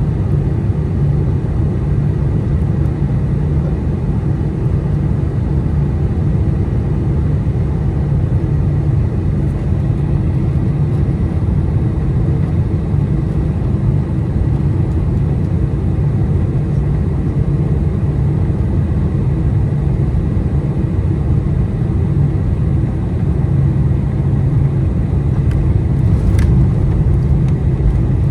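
Steady low rumble of a Boeing 747-400's cabin, the engine and airflow noise heard inside the airliner, growing slightly louder near the end with a faint click late on.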